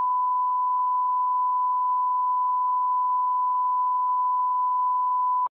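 Steady 1 kHz line-up test tone played with colour bars, one unchanging pitch at constant level, cutting off suddenly at the end.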